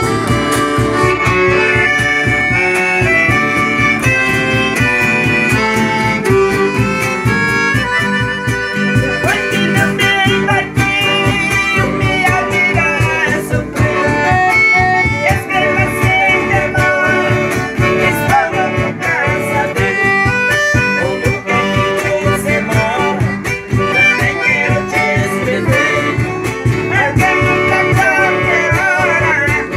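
An accordion and an acoustic guitar playing a tune together live, the guitar strummed under the accordion's reedy melody, with men's voices singing along.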